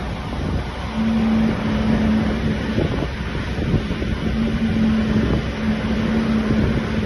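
Gusty wind buffeting the microphone in a continuous low rumble, with a steady mechanical hum of one pitch coming in about a second in and dropping in and out.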